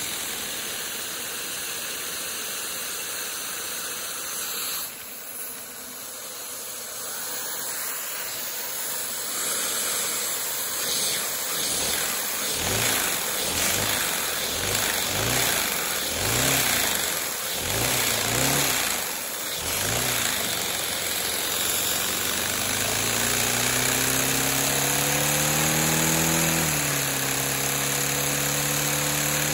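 LEGO vacuum engine running at high speed, its plastic crankshaft and connecting rods clattering and whirring. Its speed surges up and down in quick waves, then climbs into a steady, rising hum that dips once briefly before holding.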